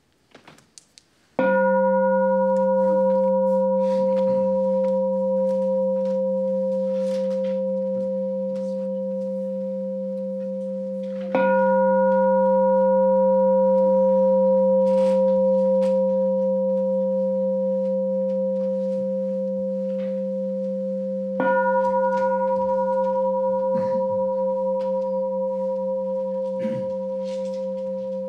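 Large temple bowl bell struck three times, about ten seconds apart, each stroke ringing on with a slow wobble until the next.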